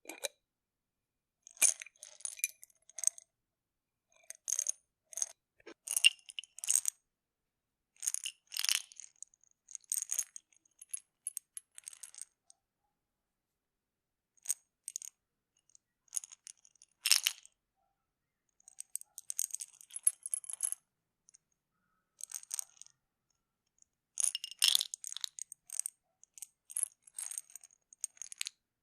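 Pills rattling and clinking in a pill bottle as it is handled, opened and closed: irregular bursts of small, sharp clicks with short pauses between them and one sharper click about two-thirds of the way through.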